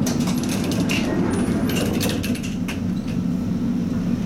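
Tatra T3 tram rolling along the track, heard from inside the car: a steady low rumble from the running gear under a stream of rattling and clicking. A brief faint high squeal comes about a second in.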